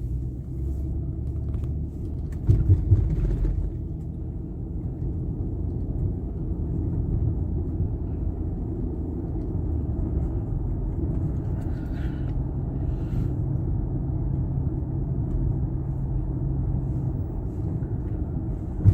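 Steady low rumble of a car being driven, heard from inside the cabin: engine and road noise, with a louder knock or bump about two and a half seconds in.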